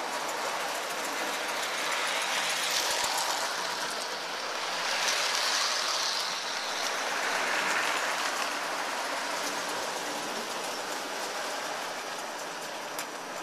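Lionel O-gauge model train running on three-rail track, a steady rumble and rattle that swells as it passes close by between about three and eight seconds in.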